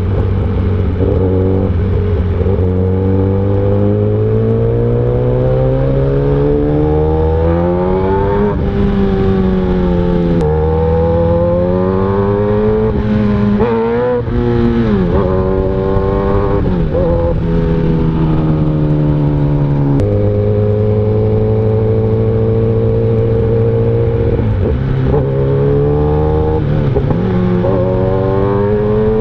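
Inline-four superbike engine running on the move, its pitch climbing slowly through each gear and dropping back at the shifts, with quicker blips of revs in places.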